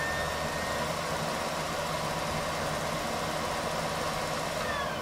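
Steady hissing background noise with a faint low hum.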